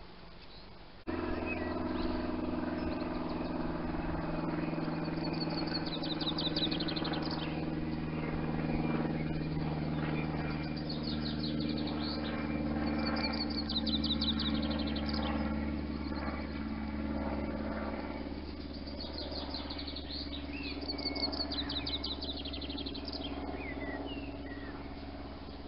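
A steady low mechanical hum, like an engine or motor running, starts abruptly about a second in and holds on. Over it a small bird sings several quick high trilled phrases.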